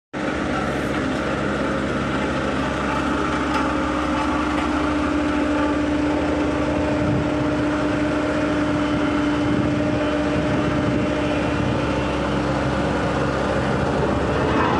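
Road roller's engine running steadily, a constant drone with a steady hum over it.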